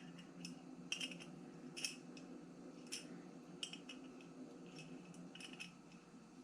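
Small screws and metal parts of a miniature metal tool cart clicking and tapping lightly as they are handled and fitted, in scattered single clicks a second or so apart.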